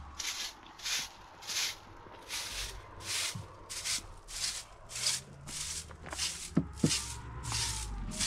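Hand-held straw broom sweeping dirt and dust, a steady run of short scratchy swishes at about one and a half strokes a second. Two sharp knocks come close together a little past the middle.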